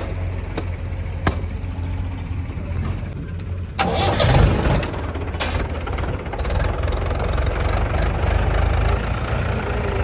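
Mahindra 475 DI tractor's four-cylinder diesel engine started about four seconds in, catching with a sudden burst and then running steadily.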